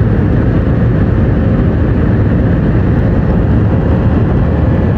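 Jet airliner's turbofan engines heard from inside the cabin during the climb after takeoff: a loud, steady rush of engine and air noise with a faint steady hum.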